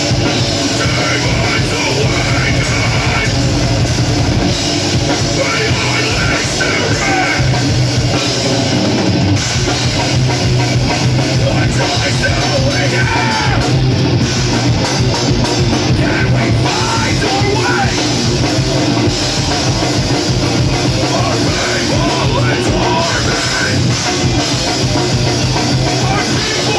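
Heavy metal band playing live and loud: drum kit, electric guitars and bass, with a vocalist singing into a microphone.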